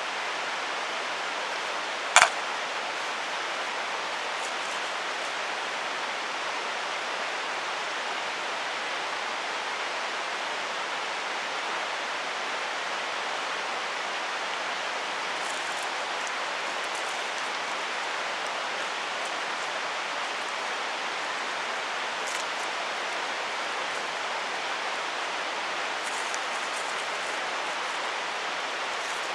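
Mountain stream rushing steadily over rocks. A single sharp snap about two seconds in, with a few faint ticks later.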